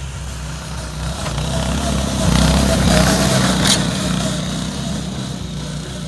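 Arctic Cat 120 youth snowmobile running at low speed. Its small engine's steady hum swells as the sled passes close about two to four seconds in, then fades as it moves away, with a short sharp click near its closest point.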